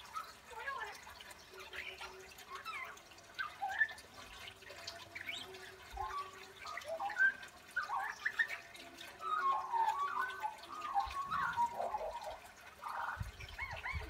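Australian magpie singing quietly: a rambling warble of short fluting, gliding notes and chirps, busiest in the second half.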